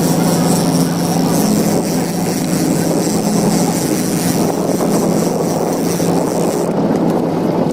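Fishing boat's engine running steadily underway, a constant low hum with wind and water hiss over it.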